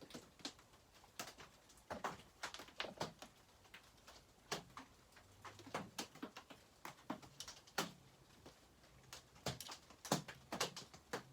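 Scattered light clicks and taps, irregular, of a bolt being started by hand and small chainsaw parts and tools handled during reassembly.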